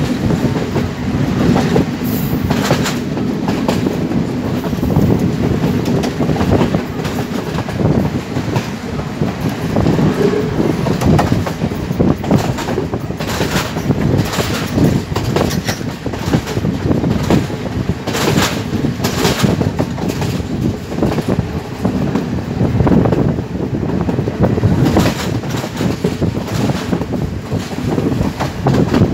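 Moving passenger train: a steady low running rumble with irregular sharp clacks of the wheels over rail joints.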